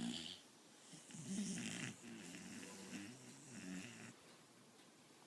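Dog snoring: about four snores in quick succession, each a short pitched buzz, the last ending about four seconds in.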